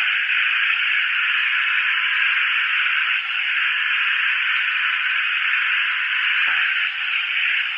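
Long-reach drywall sander with a hard abrasive disc grinding a popcorn ceiling texture, its hose-connected dust extractor running: a steady, even hiss.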